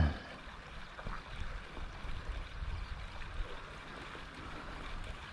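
Wind rumbling on the microphone over gently lapping seawater, with a short low thump right at the start.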